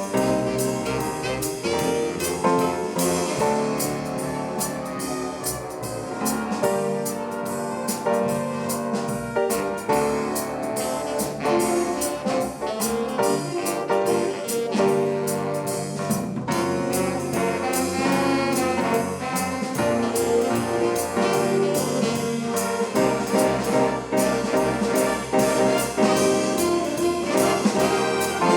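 High school swing band playing jazz, with trumpets, trombones and saxophones over a steady beat.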